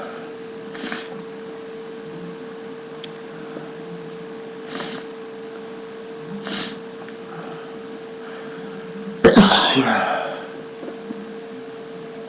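A few short, faint breaths, then one loud, sudden human sneeze about nine seconds in, brought on by sniffing ground pepper.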